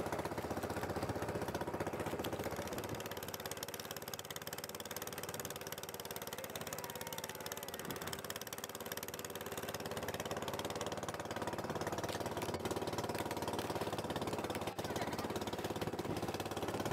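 Small boat's engine running steadily with a fast, even chugging pulse.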